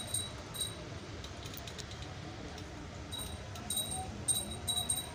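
Short, high-pitched beeps from a digital multimeter's continuity beeper, sounding in broken stretches as the test probes touch and lift off points on the laptop motherboard. There is a cluster of them near the end, with faint clicks of the probe tips between.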